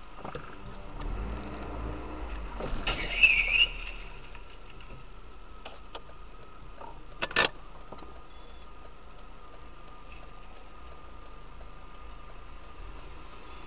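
Car running along the road, heard as a dashcam records it: a steady low hum, with a rising rush and a brief high squeal about three seconds in, and a short sharp double knock about seven seconds in.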